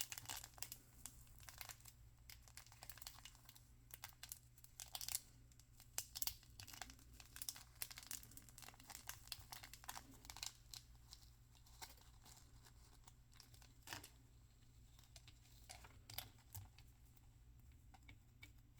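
Toy packaging wrappers being torn open and crinkled by hand: dense crackling for the first twelve seconds or so, thinning to a few crackles near the end.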